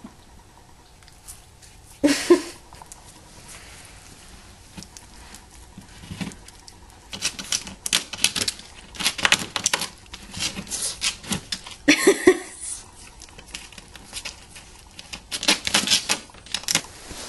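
Pomeranian scratching and gnawing at a painted wall baseboard: quick scraping bursts in irregular runs, with two louder short bursts about 2 seconds in and about 12 seconds in.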